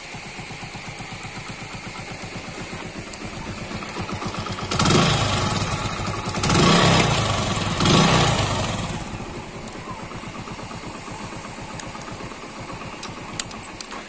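Hero Passion Pro's single-cylinder four-stroke engine idling steadily, revved with three quick throttle blips about five to eight seconds in, each falling back to idle. It is running again after its wiring fault was repaired.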